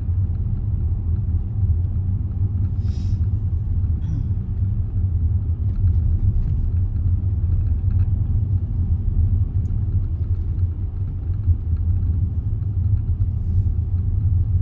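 Steady low rumble of a Range Rover driving slowly, engine and tyre noise heard from inside the cabin.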